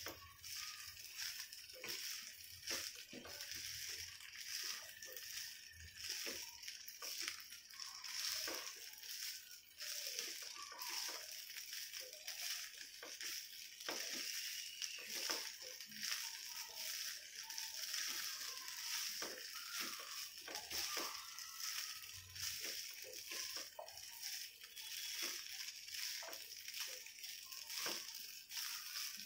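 A spatula stirring and tossing rice in a nonstick kadai: soft irregular scraping and scuffing strokes against the pan, over a faint steady sizzle from the ghee on the heat.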